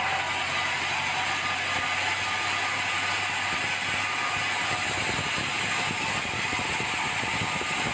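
Sawmill saw running through red meranti timber: a steady high whirr with a dense, rapid rattle throughout.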